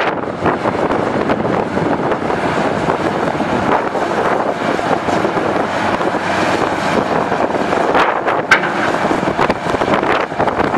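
John Deere 890A long-reach excavator's diesel engine running, heavily buffeted by wind on the microphone. A single sharp click comes about eight and a half seconds in.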